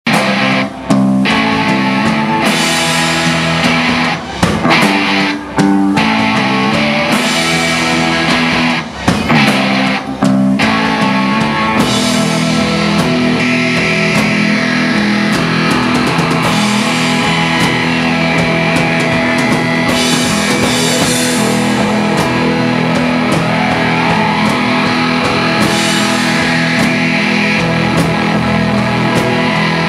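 A rock band playing live without vocals: electric guitar, electric bass and drum kit. For the first ten seconds or so the band plays in short stop-start hits with brief gaps between them, then it plays on steadily.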